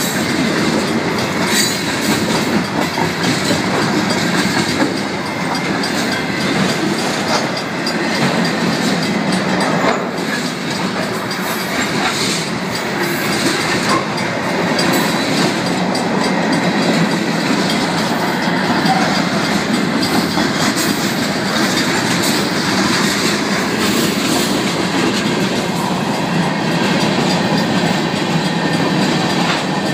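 Freight train of tank cars and covered hopper cars rolling past close by: a steady rumble of wheels with clickety-clack over the rail joints. The grade crossing's mechanical bells are ringing throughout.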